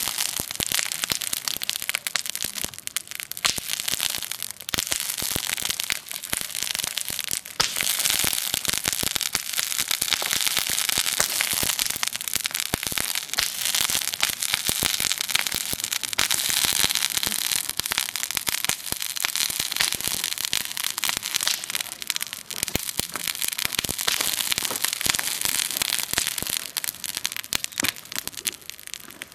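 Wood campfire crackling and popping close by, a dense run of sharp snaps over a steady hiss of burning.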